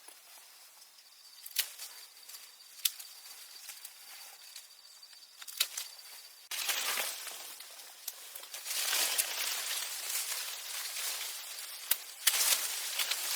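Leaves and branches rustling in bursts, with a few sharp snaps or clicks; the rustling starts about halfway through and grows louder near the end.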